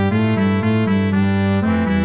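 Notation-software playback of a score for winds and brass, playing a repeating figure of short notes in the low and middle parts.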